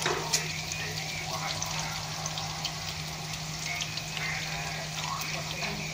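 Sliced onion, garlic and ginger sizzling in hot oil in a frying pan, an even hiss with frequent small crackling pops, over a steady low hum.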